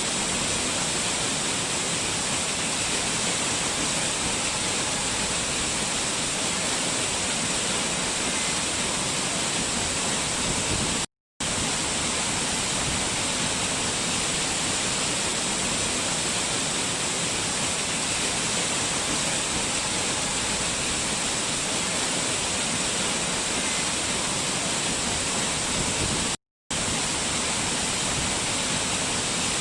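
Waterfall: a steady, even rush of falling water, hissy and bright, cut by two brief gaps of total silence about 11 and 26 seconds in.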